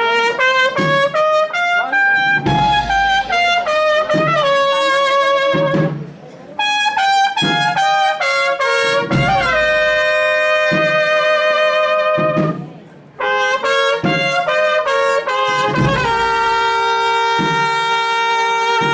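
Agrupación musical processional band playing a Holy Week march, with trumpets and trombones carrying the melody over a regular drum beat. There are short breaks between phrases about six and thirteen seconds in.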